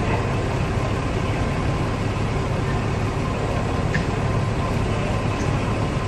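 Fire trucks' diesel engines idling, a steady low rumble.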